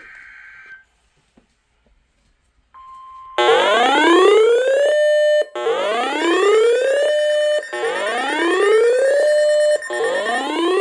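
Electronic alarm: a short steady beep, then four rising 'whoop' sweeps about two seconds apart, loud.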